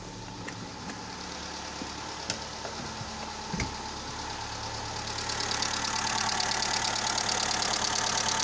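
Skoda 1.4 16V four-cylinder petrol engine idling just after a rebuild, with its hydraulic tappets fitted empty. A few sharp clicks come in the first four seconds. From about five seconds in, a fast, even ticking grows louder over the running engine.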